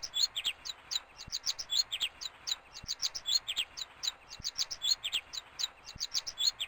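Baby robins in the nest begging for food: a rapid, continuous stream of short, high chirps, several a second, from more than one bird at once.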